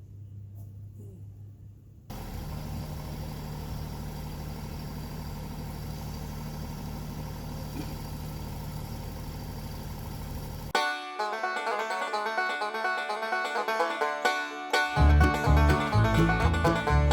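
A TYM 264 compact tractor's diesel engine running steadily, coming in abruptly about two seconds in. About ten seconds in, banjo-led bluegrass music takes over.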